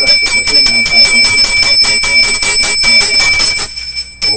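Hand-held puja bell (ghanti) rung continuously with rapid clapper strikes, giving a bright, sustained ringing. It stops for about half a second near the end, then starts again.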